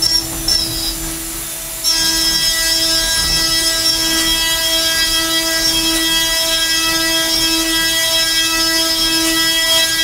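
CNC mill cutting metal with a six-flute solid carbide end mill (Kennametal HARVI III): the cut makes a steady, ringing, pitched hum. About two seconds in it gets louder and fuller, then holds steady.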